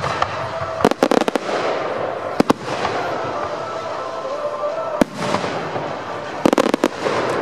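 Aerial fireworks shells bursting overhead in clusters of sharp bangs: a quick run of several about a second in, a pair around two and a half seconds, a single one at five seconds and another quick run near the end.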